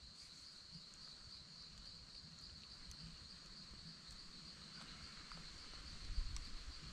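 Faint, steady high-pitched insect trill, with a few soft low bumps near the end.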